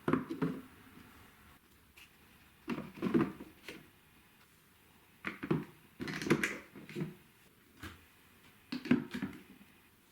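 Marbles clattering and clicking against plastic marble-run track, in short bursts of rattling knocks every second or two.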